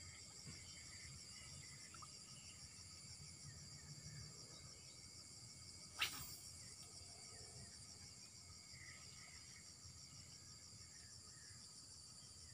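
Steady high-pitched pulsing chirring of insects from the swamp vegetation. About halfway through, one short sharp sound as the fishing rod is cast.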